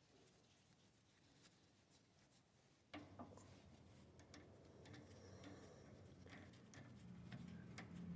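Near silence, then from about three seconds in faint clicks and scraping, with a low hum slowly building toward the end.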